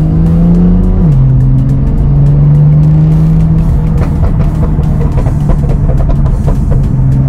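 BMW M2's N55 turbocharged straight-six accelerating, shifting up about a second in, then pulling on at fairly steady revs, with music playing over it.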